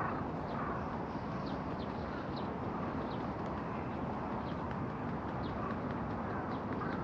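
A hand patting a calico cat on the lower back, in soft, evenly repeated pats, over a steady outdoor hum.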